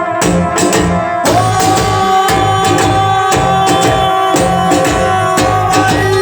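Instrumental break of Ecuadorian chichera dance music played by a band: a long held lead note comes in about a second in and lasts almost to the end, over a steady bass and percussion beat.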